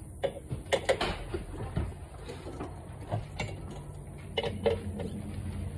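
Hand wrench turning the lug nuts on an RV wheel: irregular sharp metallic clicks and clinks, some in quick pairs, over a low steady hum.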